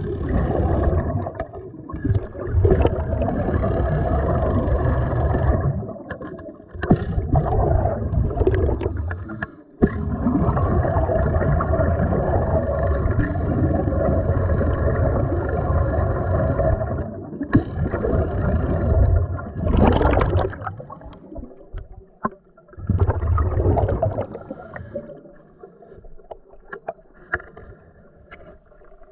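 Pneumatic ratchet fed from a scuba regulator's hose, run underwater in long bursts on the trigger to drive a bolt tight, its exhaust air bubbling out around the tool. Over the last third the bursts get shorter and the sound quieter.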